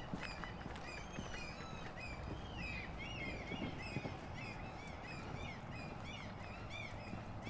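Many birds calling at once in a dense, overlapping chorus of short arched chirps, over a low steady background rumble, with a few light footsteps.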